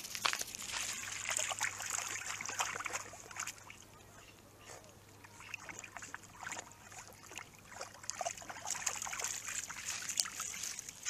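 A dog wading in shallow lake water, water splashing and sloshing around its legs in irregular bursts, quieter for a couple of seconds in the middle.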